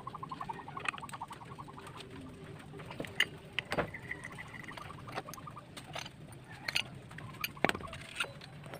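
Sharp clicks and knocks of metal parts being handled as the drive belt and front pulley of a Yamaha Mio scooter's CVT are taken off by hand. A rapid trilling animal call pulses in the background at the start and again midway.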